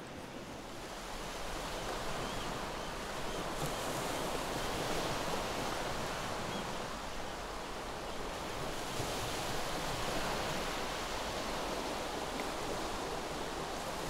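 Steady rushing noise with no pitch to it, fading in over the first two seconds and then swelling and easing slowly.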